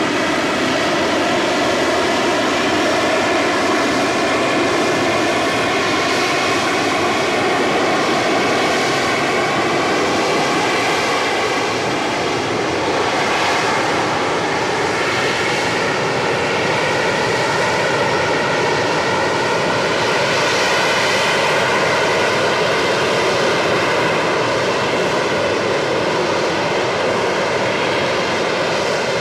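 AV-8B Harrier's Rolls-Royce Pegasus vectored-thrust turbofan running, a loud steady jet roar with a layered whine that drifts a little in pitch.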